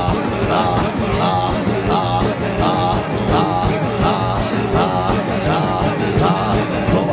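Loud live worship music with a steady beat, with wavering voices repeating over it.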